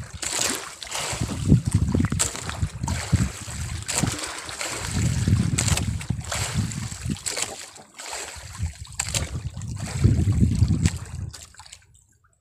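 Water splashing and lapping at the side of a small boat, with wind rumbling in gusts on the microphone and a few sharp knocks.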